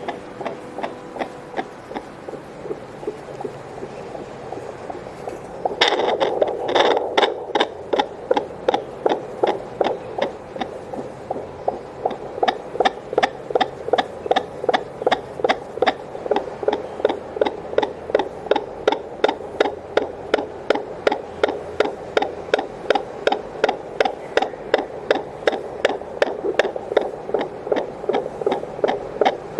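Heartbeat whooshing through the loudspeaker of an 802 handheld fetal Doppler: about six seconds of faint hiss with weak pulses, then a loud, even pulse of about two and a half beats a second once the probe picks up the heart.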